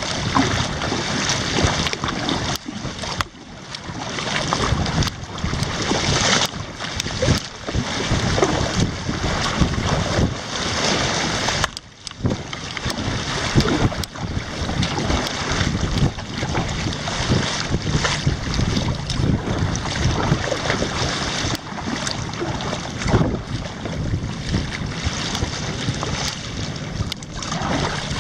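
Wind buffeting the microphone over water sloshing and splashing around a kayak at sea, a loud, uneven rush with short lulls about 3 and 12 seconds in.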